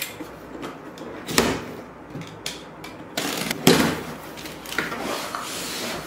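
Cardboard box being opened: a utility knife slitting packing tape, then the flaps pulled open, with sharp knocks and a stretch of scraping and rustling cardboard.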